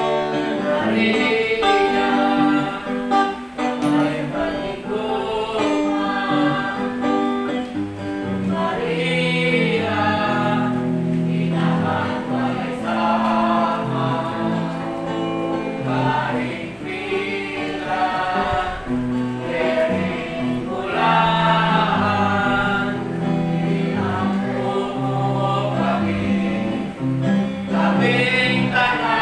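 Several voices singing a gospel song together, with acoustic guitar accompaniment.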